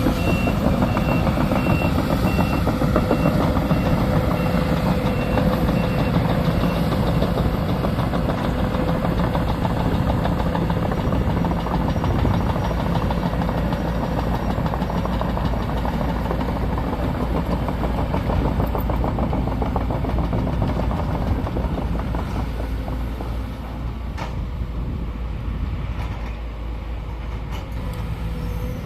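Sumitomo SH210 hydraulic excavator's diesel engine running steadily under working load, easing slightly near the end. An alarm beeps repeatedly through the first several seconds.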